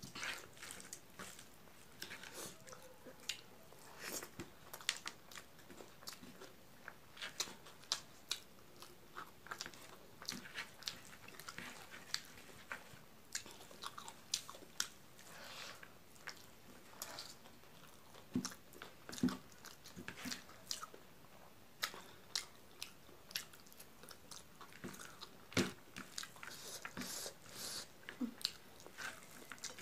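Close-up eating sounds of rice with milk curry eaten by hand: chewing and wet mouth smacks, heard as many short, irregular clicks.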